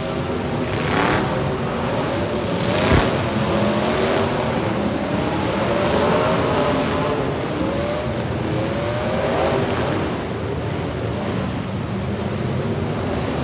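Several demolition derby cars' engines revving up and down at once, with a heavy crash about three seconds in.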